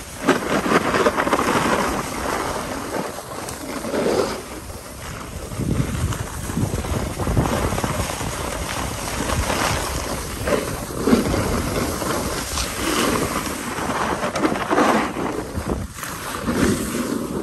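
Wind rushing over the microphone of a camera carried by a snowboarder riding downhill, mixed with the scrape of the board on packed snow, swelling and fading as the rider turns.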